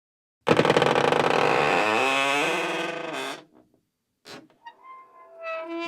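Old wooden door creaking on its hinges: a loud, harsh creak of about three seconds begins half a second in, its pitch stepping about as it goes. A short knock follows, then a few shorter, higher creaks near the end.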